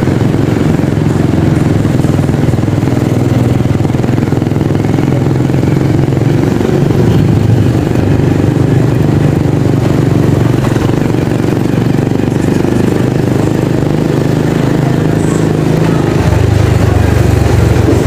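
Motor scooter engine running steadily while riding at low speed, heard from the rider's seat.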